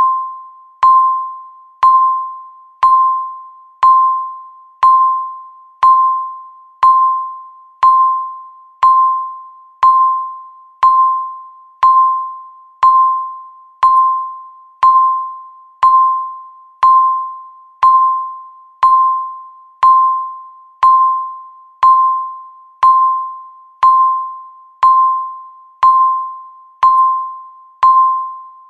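A countdown timer's beep: one short chime-like tone of the same pitch struck once every second, each starting sharply and fading away before the next, marking each second left.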